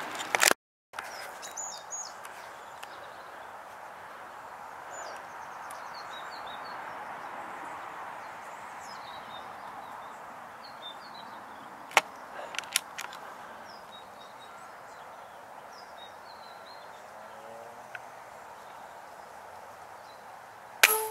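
Outdoor background hiss with scattered small bird chirps and a few sharp clicks around the middle; near the end, the loud sharp crack of a Falcon FN19 .25-calibre air rifle firing.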